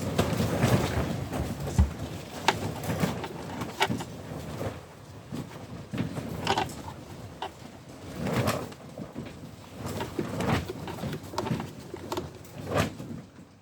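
Irregular small clicks, knocks and rubbing as small plastic light parts are handled on a workbench.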